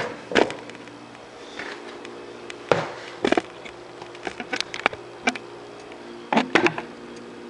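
Bare hands mashing crumbled cake into frosting in a bowl: irregular squishing and clicking with a few sharper knocks against the bowl, over a low steady hum.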